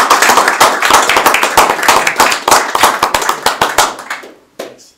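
A small group of people applauding with rapid hand claps, thinning out and dying away about four seconds in.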